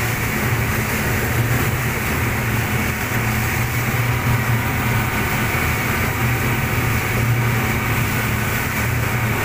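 Outboard engine of a rigid inflatable rescue boat running steadily at speed, with a constant low hum under the rush of churning wake water and wind.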